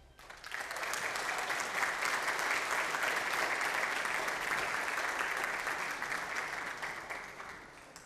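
Congregation applauding. The clapping swells within the first second, holds steady, then dies away near the end.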